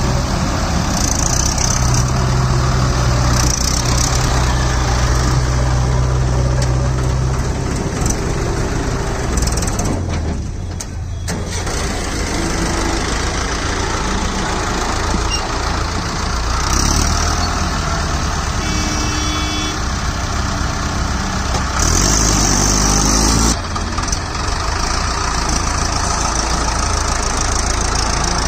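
Mahindra 555 DI tractor's diesel engine running steadily and loudly under load as it pulls a fully loaded trolley over gravel. A louder noisy rush of a second or two comes about three-quarters of the way through.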